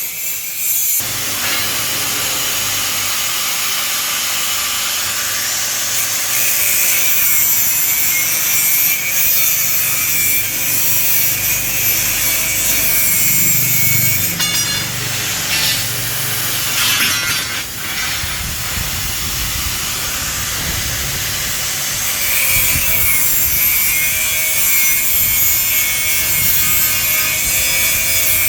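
Continuous rasping of steel stock being cut or ground for a metal shelf, loud and mostly high-pitched, with no break.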